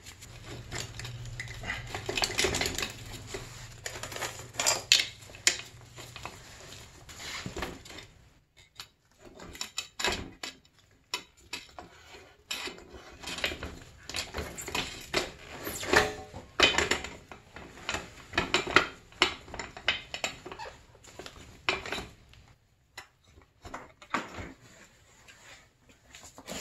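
Irregular metallic clinks, knocks and rattles of tools and parts as the rear wheel of a 2006 Honda CRF250R dirt bike is taken off: the drive chain lifted off the sprocket and the axle and wheel worked out of the swingarm.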